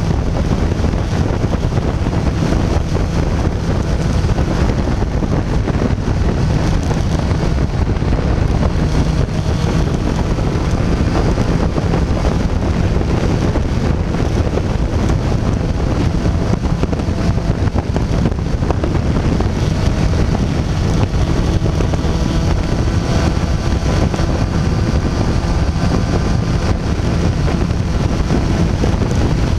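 Sport motorcycle cruising at highway speed: a steady rush of wind over the camera microphone with the engine's drone beneath it.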